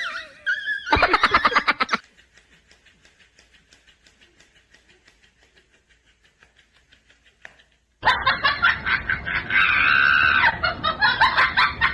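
Laughter: loud, rapid pulsing bursts for about the first two seconds, a faint quick pulsing through the middle, then loud, dense laughing again from about eight seconds in.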